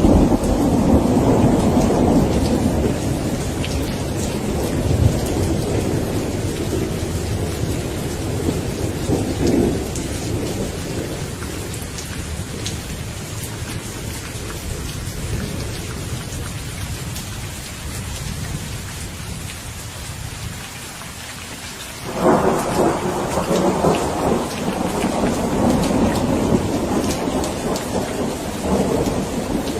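Steady rain with rolling thunder. A low rumble fades away over the first ten seconds or so, and about two-thirds of the way through a new thunderclap breaks in suddenly and rumbles on.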